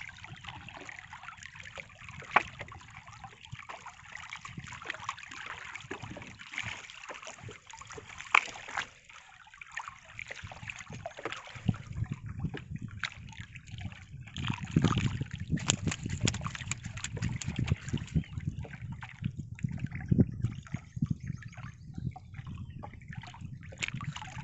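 Water splashing and lapping around a small wooden boat, with a paddle dipping in the water, and two sharp knocks in the first half. About halfway through, an uneven low rumble comes in and grows louder.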